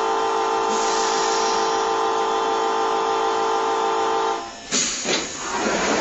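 Train door-closing buzzer sounding a steady multi-tone note with a hiss above it, cutting off about four and a half seconds in. The sliding passenger doors of a Nankai 6000 series car then start to close, with a sudden rush of noise and rough scraping sounds.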